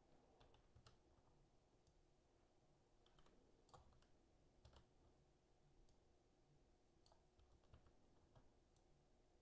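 Faint, scattered clicks of a computer mouse and keyboard over near silence, a dozen or so irregular taps as finish times are entered in timing software.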